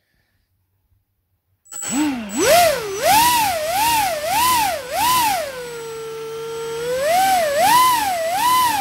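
Model plane's brushless drone motor with propeller starting up about two seconds in with a rising whine, then throttled up and down in quick surges. Midway it holds a steady lower whine for about a second and a half, then surges again.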